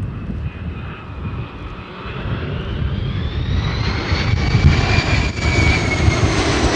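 DC-10 air tanker's three turbofan jet engines passing low: a steady low rumble with a fan whine that rises in pitch and grows louder from about two seconds in.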